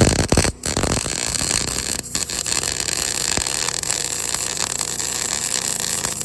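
Electric arc welding on steel: the arc's steady crackling hiss as a weld bead is run, breaking off briefly about half a second in and again about two seconds in.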